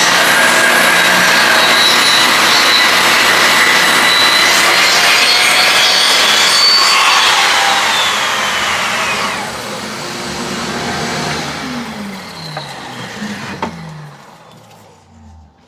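Table saw ripping a board along its edge, with a dust collector running. Partway through the cut finishes, and the machines wind down, their pitch falling steadily until they go quiet near the end.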